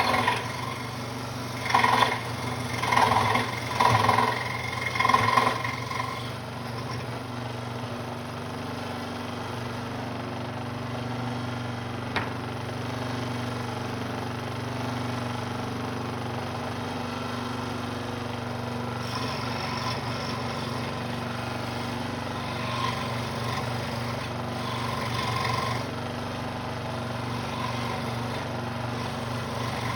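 Central Machinery scroll saw running with a steady motor hum, its reciprocating blade cutting wood. A series of louder, uneven bursts comes in the first few seconds, then it runs evenly.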